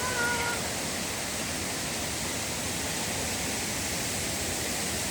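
Steady, even rush of a large waterfall's falling water. A short pitched note sounds briefly right at the start.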